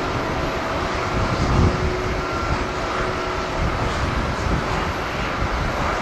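Twin-engine jet airliner climbing out after takeoff: a steady rushing jet engine noise with two faint steady hums in it, with gusty wind buffeting the microphone underneath.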